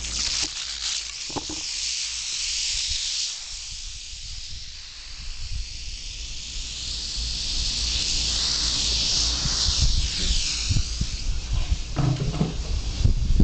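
Western diamondback rattlesnake rattling its tail: a continuous high buzz that swells and fades, strongest in the second half. Low rumble runs underneath, and a few low knocks come near the end.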